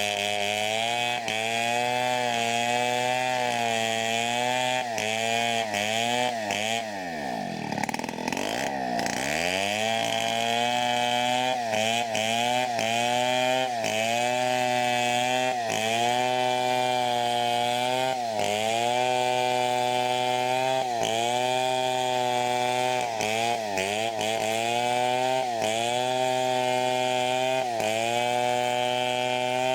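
Chainsaw running at full throttle while ripping teak, its engine note dipping again and again as the chain bites. About seven seconds in the pitch sags deeply under load for two or three seconds, then climbs back.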